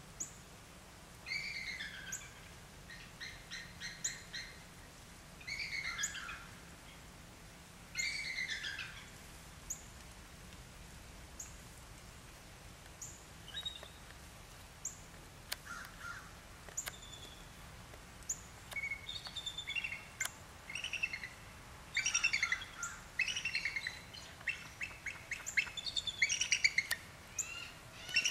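Bald eagles calling: short series of high, thin chittering notes that fall in pitch, repeated every couple of seconds. Near the end comes a faster, denser run of rapid notes.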